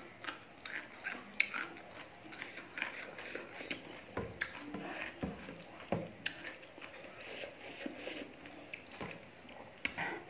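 Eating sounds: chewing and wet mouth noises, along with fingers squishing and mixing rice and curry on a stainless steel tray. Short, irregular clicks and crackles come throughout.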